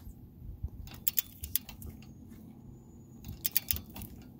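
Ratchet wrench clicking in two short runs as a lug nut is cranked down, drawing a wheel stud into the front hub.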